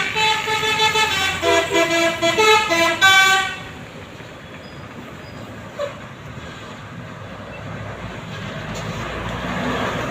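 A Tunggal Jaya bus's Basuri telolet horn plays a quick tune of stepped notes for about three and a half seconds and then stops. After it, vehicle and road noise grows louder near the end.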